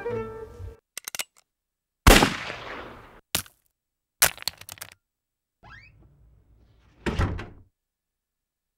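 Revolver sound effects: a few light clicks, then a sharp bang with a long fading tail about two seconds in. More clicks follow, then a short rising whistle and a second bang near the end.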